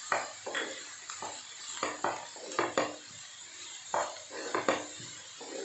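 Wooden spatula scraping and knocking against a nonstick frying pan as chopped onion, carrot and green chilli are stir-fried over a high flame, in irregular strokes about twice a second, over a faint sizzle.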